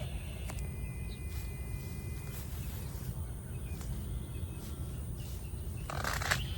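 Outdoor garden ambience: a steady low rumble, a faint steady high insect drone and a few faint bird chirps, with a brief rustling sound about six seconds in.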